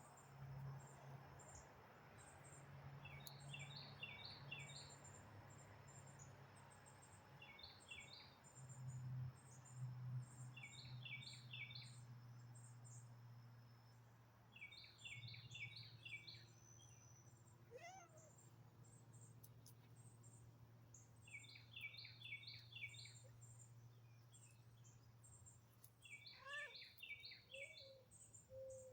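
Faint outdoor nature ambience: a bird repeats a quick burst of four or five high chirps every few seconds. Beneath it runs a continuous thin, very high chirping and a steady low hum, with a single sliding call about two-thirds of the way through and a few lower calls near the end.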